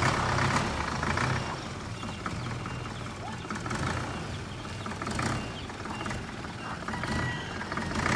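Isuzu Elf light truck's diesel engine running at idle, a steady low hum.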